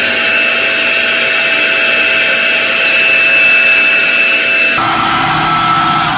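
Hand-held hair dryer blowing, a loud rush of air with a steady high motor whine that drops abruptly to a lower whine about five seconds in.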